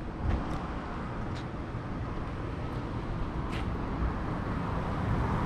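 Outdoor street ambience: a steady low rumble of distant traffic and air, with a few faint ticks, growing slightly louder toward the end.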